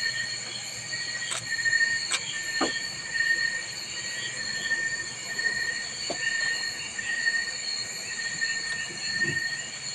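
Insect chorus: steady high-pitched shrilling with a pulsing note repeating more than once a second, and a few faint clicks.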